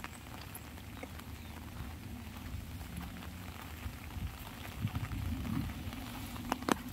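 Light rain pattering on an umbrella, with scattered drops ticking steadily and a couple of sharper taps near the end.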